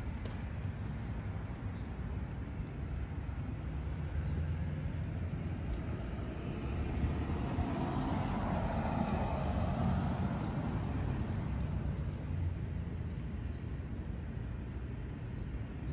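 Distant road traffic: a steady low rumble, with a car passing that swells and fades around the middle.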